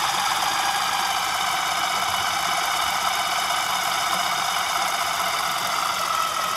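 Fishon Spooler Pro's variable-speed electric motor running steadily as it winds fishing line onto a spinning reel spool. It gives a whine whose pitch slowly rises over the few seconds.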